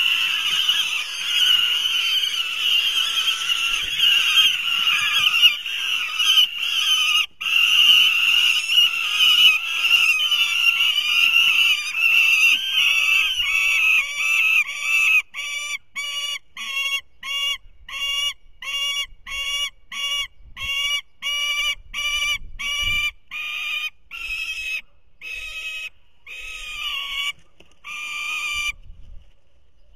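Young falcons at the nest screaming continuously; about halfway through the calling breaks into a regular run of short repeated screams, about one and a half a second, which stops near the end.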